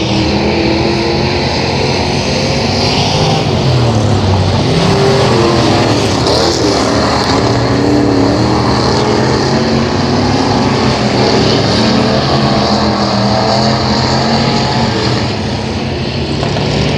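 Several factory stock dirt-track race cars running laps together at speed, their engines rising and falling in pitch.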